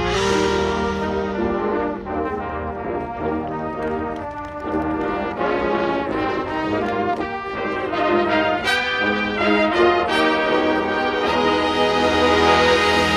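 Drum corps horn line of marching brass playing a loud chordal passage, the notes changing every second or so. The ensemble grows louder in the last few seconds.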